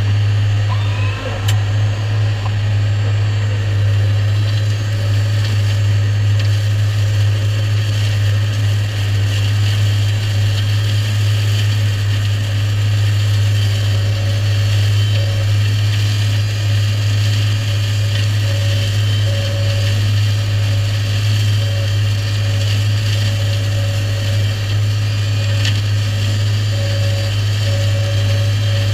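New Holland tractor engine running under load while a Shelbourne hedge cutter's flail head spins, mowing grass on a ditch bank. A steady low drone with a higher whine above it.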